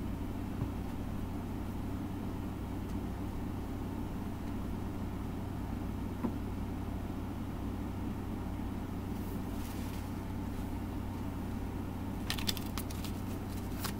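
Steady low mechanical hum in the background, with a few light clicks and taps near the end.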